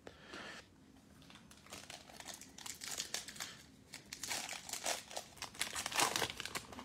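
Foil wrapper of a Panini Playoff football card pack being torn open and crinkled by hand: faint crackles at first, then louder, denser crinkling as the pack is pulled apart about two-thirds of the way through.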